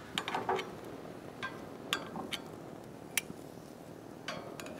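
Metal grill tongs clicking and clinking against a gas grill's grate as potatoes and carrots are turned: a quick run of clicks at the start, scattered single ticks, and another short run near the end, over a faint steady hiss.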